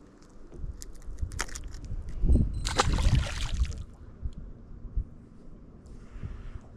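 Water splashing and sloshing as a hooked fish thrashes at the surface beside the boat, with a few sharp clicks first and the biggest splash about two and a half seconds in, lasting over a second.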